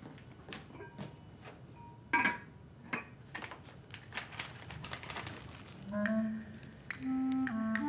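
Handling sounds of a small blue plastic crate being opened and paper packets of Chinese herbal medicine taken out: a run of light clicks, clinks and rustles, with a sharper clink just after two seconds. Background music with held notes comes in about six seconds in.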